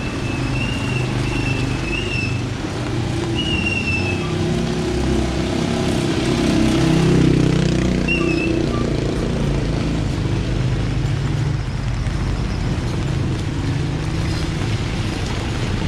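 Street traffic: a motor vehicle's engine running close by, growing louder as it passes about seven seconds in, over a steady hiss. A thin high wavering tone comes and goes a few times in the first four seconds.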